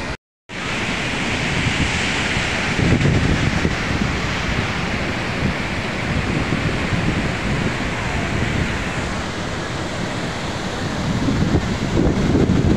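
Steady rushing noise of a large waterfall, Athirappilly Falls, with wind gusting against the microphone at times. The sound drops out completely for about half a second just after the start.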